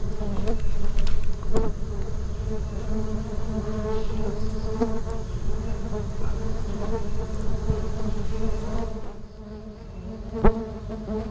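A mass of bees from an opened wild colony buzzing in a steady, dense hum. A few light clicks from handling the comb, and one sharp click near the end.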